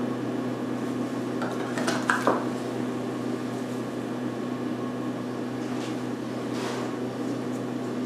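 Steady low room hum, with a brief light clatter of hands handling the work about two seconds in and a fainter one near seven seconds.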